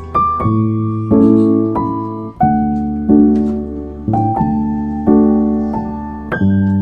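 Background piano music: struck notes and chords that ring and fade, with a new chord every second or so.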